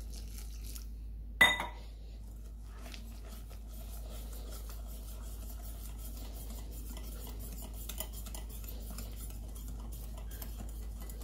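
Wire whisk beating thick chickpea-flour (besan) batter in a glass bowl: rapid small clicks and scrapes of the wires against the glass. About a second and a half in there is one sharp clink of metal on glass with a short ring.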